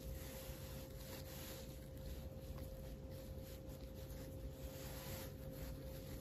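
Soft rubbing and light scuffs of a cleaning wipe being worked over an iPhone 11 Pro Max's glass screen, with a faint steady hum underneath.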